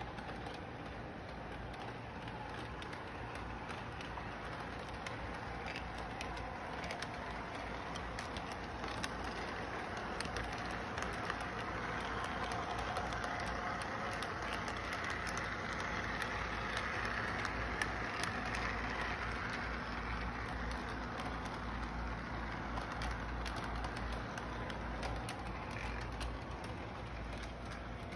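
Model freight train running on its track: a steady rolling rumble of motor and wheels with faint clicks, getting louder about halfway through as the cars pass close, then easing off.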